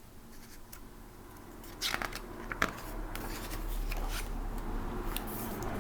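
Paper rustling and crackling, with two sharp clicks about two seconds in, as the picture book is handled and its page turned.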